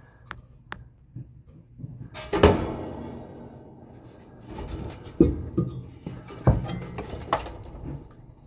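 Handling noise: a few knocks and metallic clinks, the loudest about two and a half seconds in.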